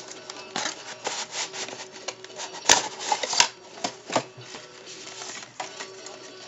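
Cardboard box and plastic packaging of a camera starter kit being handled and unpacked: rubbing and scraping with a string of sharp clicks and knocks, the loudest two a little under a second apart about three seconds in.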